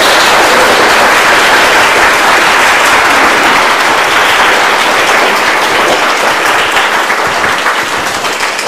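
Audience applauding: many people clapping together, holding steady and then easing off near the end.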